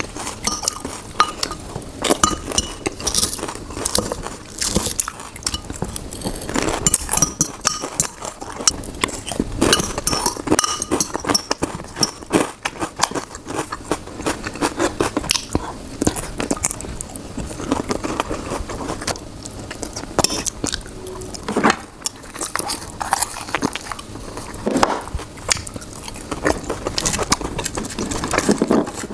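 Close-miked eating: a steady run of biting and chewing noises, with cutlery clinking against a plate or bowl.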